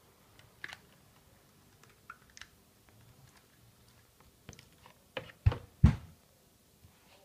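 Scattered clicks and light knocks of a vacuum cleaner motor and its rubber mounting ring being handled. About five and a half seconds in come two heavy thumps close together as the motor is set down.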